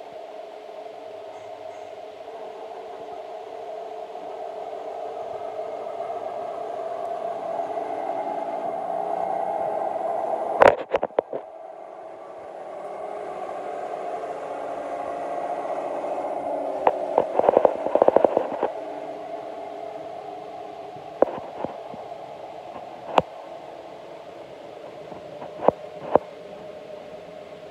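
DCC sound decoder in an O gauge Class 128 parcels railcar model playing a diesel engine running, heard through the model's small speaker, building up to about ten seconds in. Sharp clacks break in at intervals: a burst about ten seconds in, a cluster a little after the middle and single clicks near the end.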